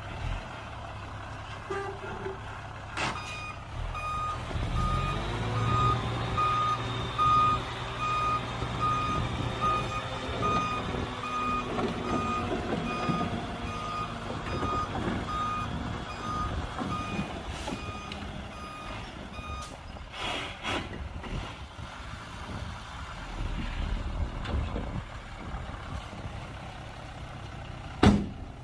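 Reversing alarm on a heavy diesel work vehicle beeping about twice a second for some thirteen seconds while its engine runs and rises in revs. Metal knocks and clanks come now and then, the loudest a sharp bang near the end.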